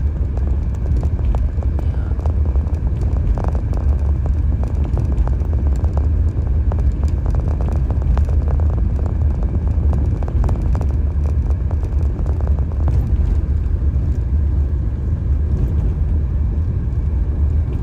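A car in motion: steady low rumble of road and engine noise heard from inside the moving car.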